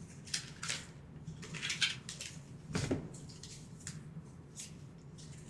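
Board game cards being handled and sorted on a table: scattered light rustles and soft taps, with one fuller tap about three seconds in.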